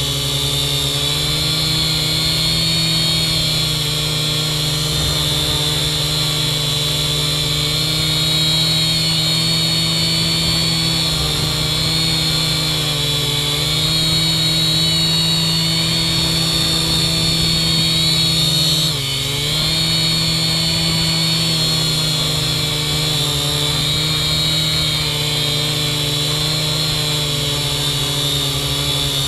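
Kaideng K70C quadcopter's motors and propellers running steadily in a hover, a buzzing hum with a high whine above it whose pitch wavers slowly as the motors adjust. About 19 seconds in the pitch and level dip briefly, then recover. Heard from a camera mounted on the quadcopter itself.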